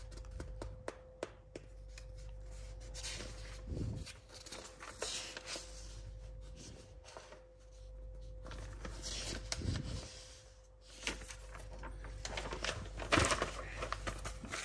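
Scattered handling sounds of hand blender parts and packaging: small clicks and knocks with a few brief rustles, over a faint steady hum.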